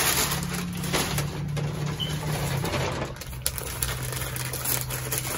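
Tissue paper crinkling and rustling in irregular crackles as a paper-wrapped porcelain teacup is unwrapped by hand, over a low steady hum.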